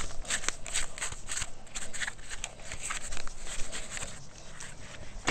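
Irregular crinkling and crackling as foil tape and insulation wrap are handled, a quick run of small crackles that thins out toward the end.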